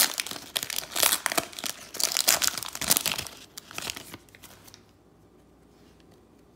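Cellophane wrapper of a Mosaic basketball cello pack being torn open and crinkled by hand, in quick crackly bursts that stop about five seconds in.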